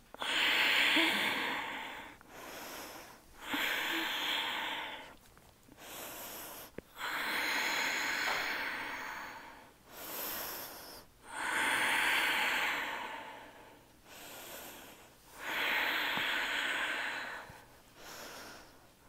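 A woman breathing slowly and audibly while holding a yoga twist: five full breaths, each a long, louder breath followed by a shorter, softer one.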